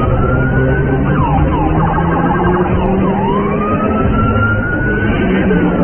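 Sirens of several pursuing SUVs wailing, overlapping and rising and falling in pitch, over the steady low rumble of vehicles at speed.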